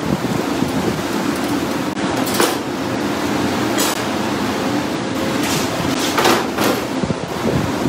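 Wind buffeting the microphone over a steady hiss of shaved ribeye and cheese sizzling on a charcoal-heated griddle, with a few brief sharp sounds, the first about two and a half seconds in and two more around six seconds.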